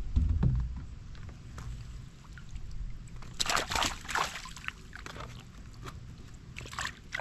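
Water splashing and dripping from a mesh fish basket handled at a kayak's side, in two spells: about three and a half seconds in and again near the end. A dull low thump comes at the start.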